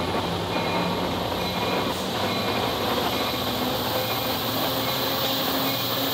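Metra diesel-electric commuter locomotive pulling slowly past at close range as the train departs: the engine runs steadily under load, with wheel and rail noise. A faint high whine rises slowly in pitch.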